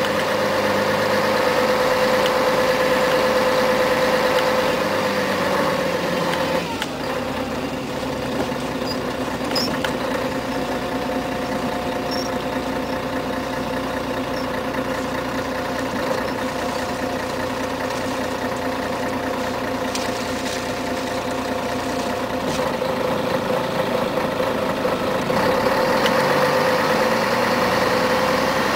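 The 11-litre straight-six diesel of a 1994 Scania CN113CLL city bus, heard from inside the cabin as the bus drives. The engine note drops about seven seconds in and settles to a steady idle while the bus waits in traffic, then rises again near the end as it pulls away.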